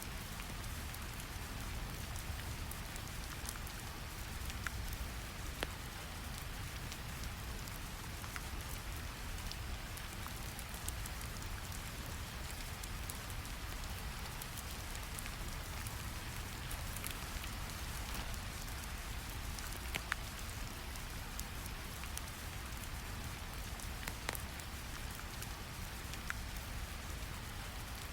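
Steady recorded rain over a low, even rumble of brown noise, with scattered faint crackles.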